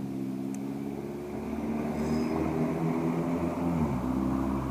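Spinning reel being cranked to bring in a hooked fish, its gears whirring steadily and the whir shifting up and down in pitch a couple of times as the cranking speed changes.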